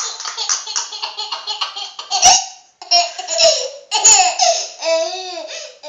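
A toddler laughing and squealing, with pitch that rises and falls. It follows a fast rattling noise in the first two seconds and a single sharp knock, the loudest sound, a little over two seconds in.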